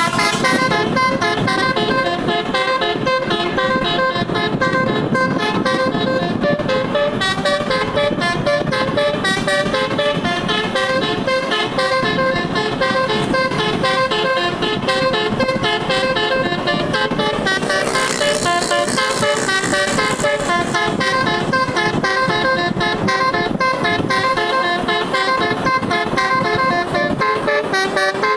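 Bus telolet horn, a multi-tone musical horn with all its tones switched on, playing a fast, continuous run of short notes that jump between pitches like a tune. A brief hiss joins in about two-thirds of the way through.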